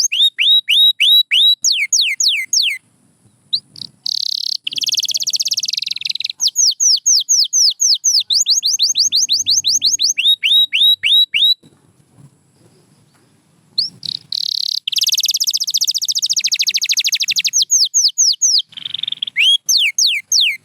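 Domestic canary singing. It repeats runs of quick, falling whistled notes, several a second, broken by fast rattling trills. There is a short pause about halfway through.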